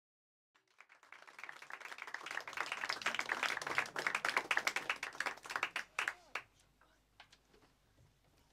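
Audience applauding. It starts about half a second in, swells, then dies away after about six seconds.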